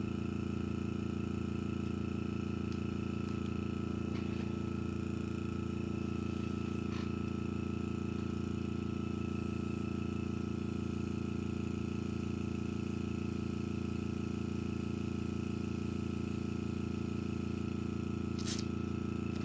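Small airbrush compressor running with a steady hum while the airbrush is in use, and a brief rustle near the end.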